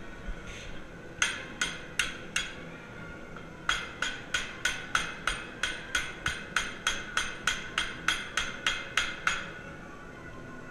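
Hammer blows on forged steel, each ringing: four quick blows, a short pause, then a steady run of about twenty blows at roughly three a second that stops near the end. This is the forged putter neck being bent to set loft and lie while clamped in a post vise.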